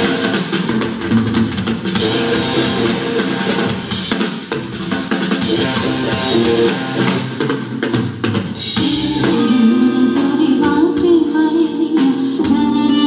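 Live funk-rock band playing: drum kit, electric guitar, bass and keyboards together. A voice starts singing over the band in the second half.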